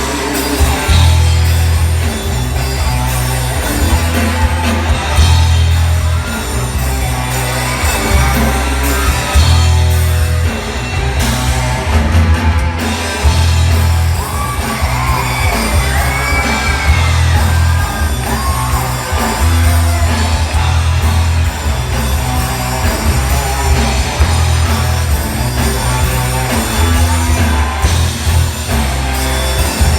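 Loud live rock music from a band: heavy, repeating bass with drums and guitar, and some singing or shouted voices in the mix.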